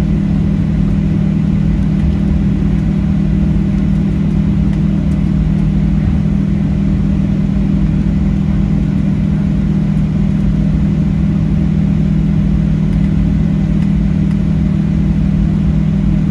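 Steady cabin noise inside a Boeing 737-700: a strong, even low hum from its CFM56-7B turbofan engines and cabin air, with no rise or fall in pitch.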